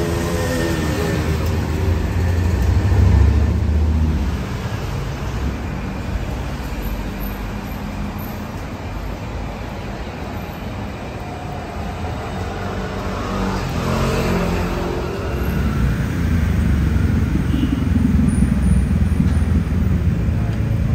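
Street traffic: vehicles passing with a low engine rumble. It swells a couple of seconds in and again over the last few seconds.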